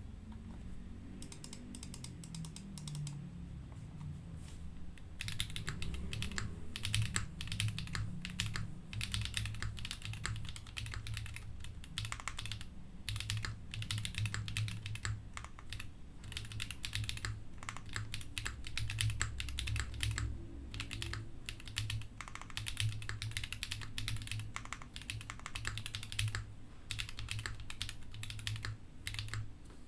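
Typing on a QK60 WKL gasket-mounted mechanical keyboard with an acrylic case, aluminium plate, factory-lubed Neon switches, no foam and GMK keycaps. The key presses are sparse for the first few seconds, then turn into fast, continuous typing from about five seconds in.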